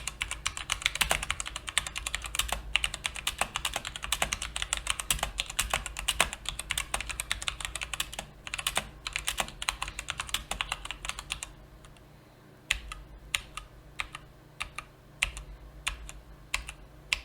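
Mechanical keyboard with brown (tactile) switches being typed on: fast, dense keystrokes, thinning out about eleven seconds in to scattered single key presses.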